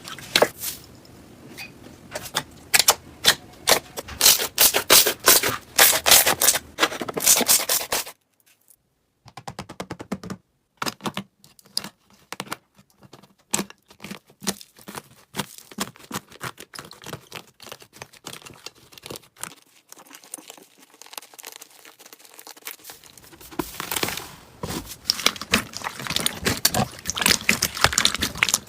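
Slime being squeezed and pulled apart, giving rapid sticky clicks and crackling pops. The clicking is dense and loud at first, drops out briefly, goes on sparser and softer for a while, then grows dense again near the end.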